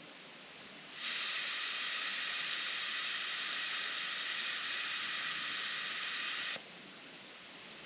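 Air hissing out through the valve stem of a Kenda TerraTrak mower tire as the valve core is held down, letting the pressure down from near maximum toward about 13 PSI. One steady hiss starts about a second in and cuts off sharply some five and a half seconds later.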